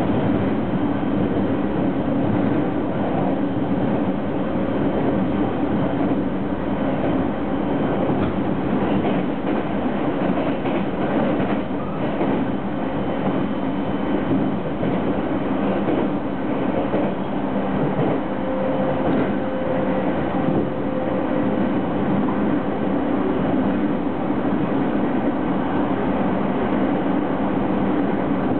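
A 209 series electric commuter train running steadily, heard from inside the car: a continuous rumble of wheels on rail, with a steady hum.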